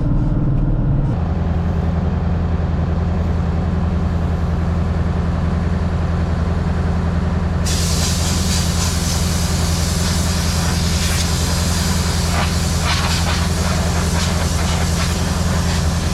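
A steady low engine hum, joined about eight seconds in by a loud, rushing hiss of air blowing grass and chaff off the machine.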